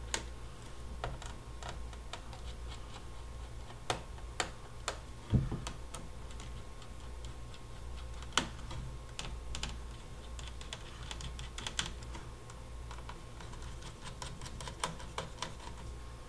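Small screwdriver working the screws out of a laptop's plastic underside: scattered light clicks and ticks with a few louder taps, over a steady low hum.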